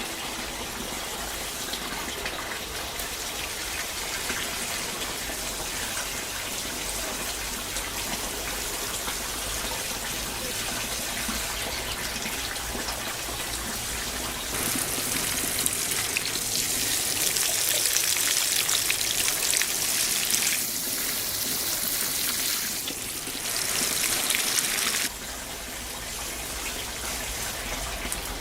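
Water running and splashing, with a louder, hissier stretch in the second half that cuts off suddenly near the end.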